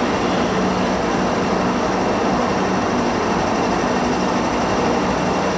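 MTR M-Train electric metro train standing at the platform with its onboard equipment running: a steady hum and whir with no change.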